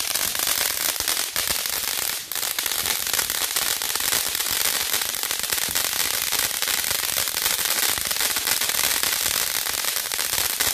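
Ground fountain firework spraying sparks with a loud, dense, unbroken crackle.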